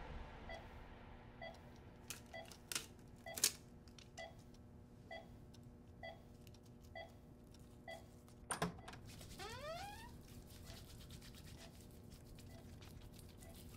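Wall clock ticking softly about once a second, with a few sharper clicks and a short rising squeak about nine and a half seconds in.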